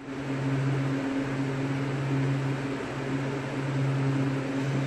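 Steady low mechanical hum with a hiss over it, swelling and easing every second or so.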